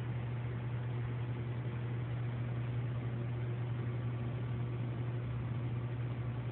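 Steady low hum with an even hiss behind it, unchanging throughout.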